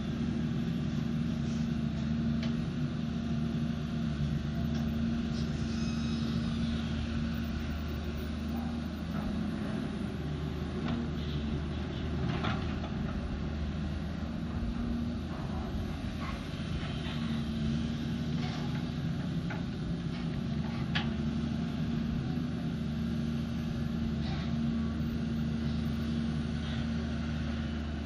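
Diesel engine of a Volvo long-reach tracked excavator running steadily under hydraulic load as it swings and raises its boom, with a few scattered short clicks.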